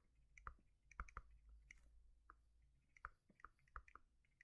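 Near silence with faint, irregularly spaced light clicks, about two or three a second.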